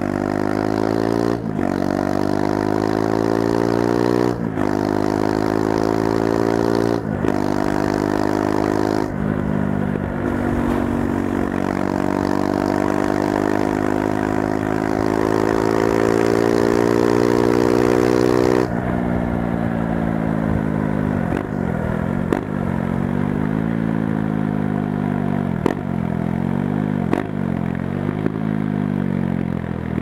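Husqvarna Svartpilen 401's single-cylinder engine through an Arrow Pro Race aftermarket silencer, accelerating up through the gears with the pitch rising and dropping at each of four quick shifts, then one long pull in a higher gear. About two-thirds in the throttle closes and it slows, the revs falling with a short rise at each of several downshifts.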